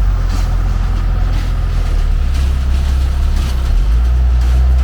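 Vehicle engine running steadily, deep and loud, its pitch shifting slightly twice, with faint short knocks about once a second.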